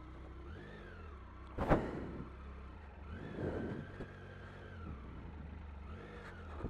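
Triumph Tiger 800's three-cylinder engine running at low revs with three brief rises in pitch from small throttle openings as the bike creeps down a steep rocky descent. A single sharp knock about 1.7 seconds in is the loudest sound.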